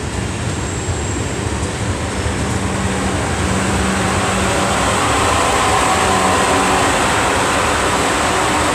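South Western Railway Class 450 Desiro electric multiple unit running past: a steady wheel-on-rail rumble and rushing noise with a low humming tone, growing slightly louder about halfway through.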